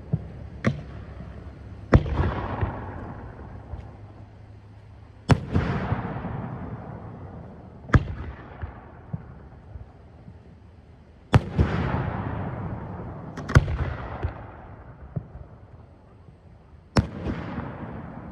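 Aerial fireworks going off: sharp bangs every few seconds, about seven in all, each followed by a rolling, echoing crackle that fades.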